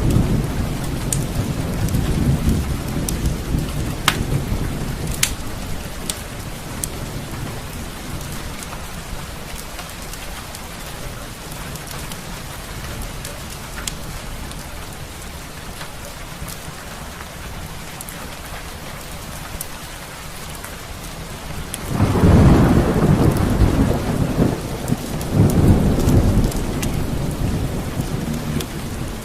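Steady rain with rolling thunder: a rumble fades over the first few seconds, then a loud peal of thunder breaks about 22 seconds in, with another rumble a few seconds later. A few sharp clicks sound over the rain early on.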